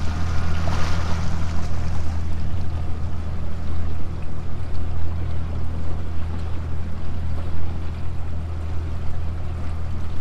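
A small boat's motor running at a steady speed, a constant low hum, with water rushing and splashing along the hull and a brief louder wash of water noise in the first second or so.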